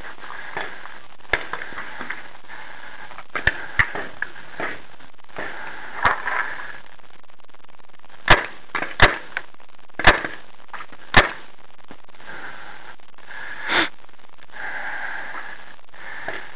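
Paintball marker firing four sharp shots, about a second apart, just after the middle, with fainter cracks of other shots earlier and a short rough burst near the end.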